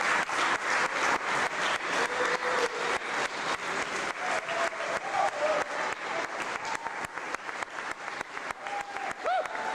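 Crowd applauding, with many hands clapping in quick succession and a few voices calling out over it.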